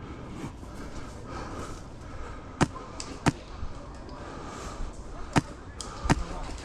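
HPA airsoft rifle firing single shots: about five sharp cracks at irregular intervals, the last few coming closer together near the end.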